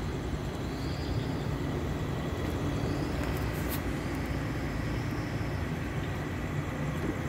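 Window-type air conditioner running with a steady low hum and rumble.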